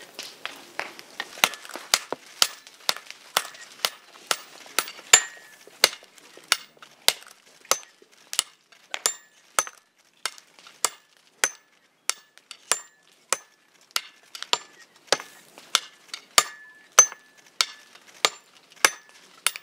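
Sledgehammers striking a red-hot knife blade on an anvil in traditional Japanese hand forging, two strikers taking turns. Sharp, ringing metal blows at a steady pace of about two a second, lighter for the first second or so.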